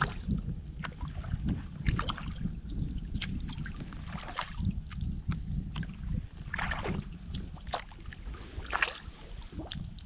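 Kayak paddle blades dipping and pulling through calm water, one splashy stroke about every two seconds with drips in between, over a low steady rumble of wind on the microphone.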